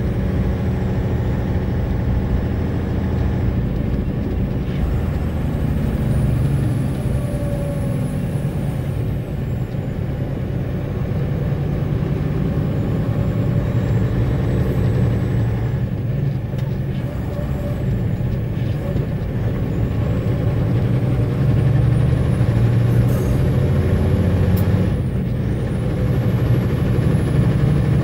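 Logging truck's diesel engine running steadily while driving, its level rising a little under load a couple of times near the end.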